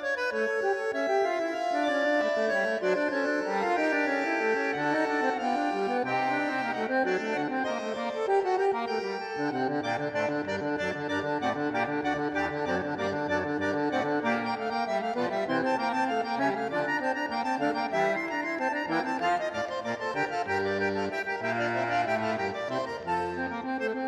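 Background music led by an accordion, with a bass line, in a traditional style.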